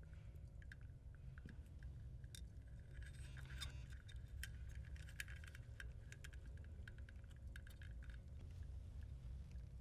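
Faint small clicks, ticks and rustles of fingers handling a thin hookup wire and threading it into a small circuit board, over a low steady background hum.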